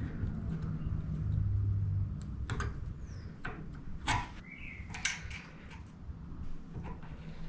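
A few light metallic clicks and taps as a short steel strip is handled and set against a steel plate held in a bench vise, over a steady low hum. A couple of faint bird chirps sound in the background.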